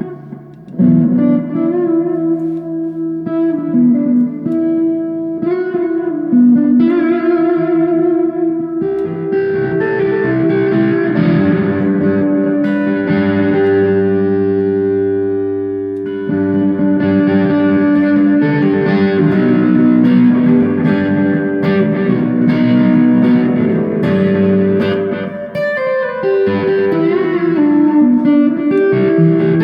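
Gibson electric guitar played solo through a Marshall amplifier: improvised single-note lines and sustained notes, with one long note held and left to fade about halfway through before the playing picks up again.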